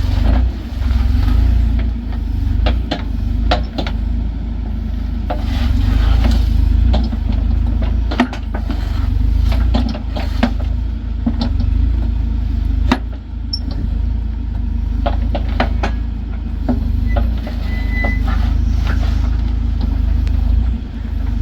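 The engine of a piece of earthmoving equipment running steadily with a low drone, with repeated sharp knocks and clatters as rocks and dirt are moved.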